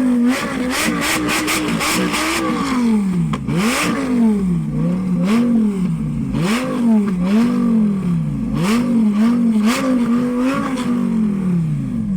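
Lamborghini supercar engine being revved over and over, its pitch climbing and dropping back about once a second, with sharp cracks in between.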